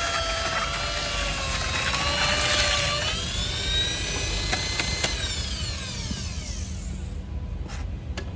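Power drill fitted with a spiral paddle, mixing stiff cement repair mortar in a plastic tub, motor whining steadily. About five seconds in it is released and winds down with falling pitch, followed by a few light knocks near the end.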